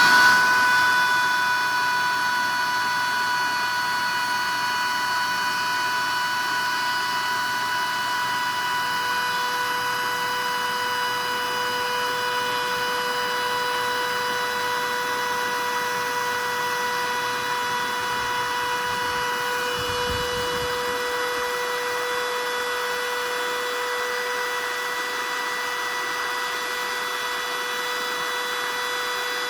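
Bissell CleanView vacuum motor running at speed, a steady whine, while sandpaper is held to its spinning motor shaft to clean off rust. The pitch pattern shifts slightly about two-thirds of the way through.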